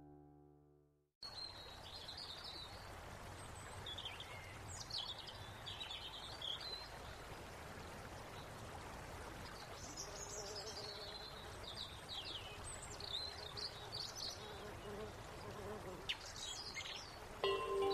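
Outdoor ambience with small birds chirping repeatedly over a faint background hiss. Near the end, chiming music comes in louder.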